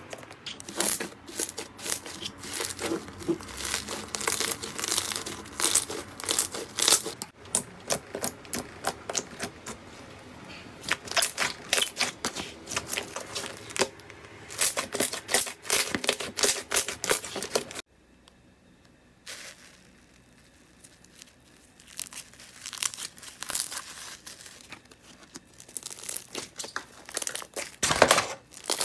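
Hands squeezing and poking slime: a dense run of crackling, popping clicks that thins out and goes quieter about two-thirds of the way through, with one loud pop near the end.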